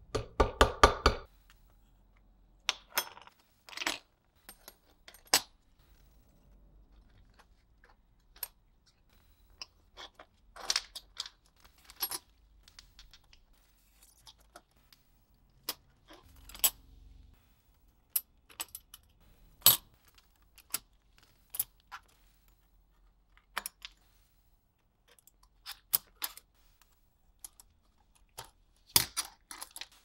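Sharp metallic clicks and taps from a pocket knife being handled, with a quick run of clicks in the first second, then single clicks every second or two.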